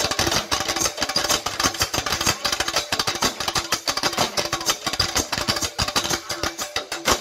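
A drum ensemble playing a fast, dense rhythm: a rapid stream of sharp strikes, several to the second, with short pitched drum notes among them.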